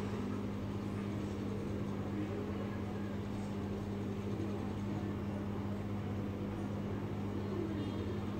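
Hilsa fish steaks sizzling as they fry in hot oil, over a steady low hum.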